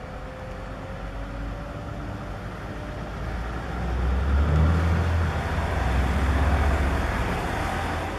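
Heavy diesel engine running with a low rumble that swells about four seconds in, holds for a few seconds, then eases near the end.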